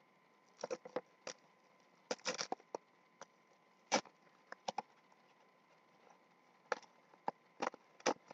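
Plastic wrapping being peeled and crinkled off a small mystery-figure box by hand: irregular sharp crinkles and crackles with short pauses between them.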